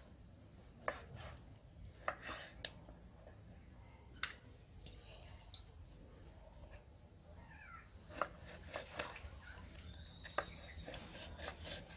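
Kitchen knife cutting raw tuna into chunks on a wooden cutting board: a scattering of sharp, irregular knocks as the blade goes through the fish and meets the board.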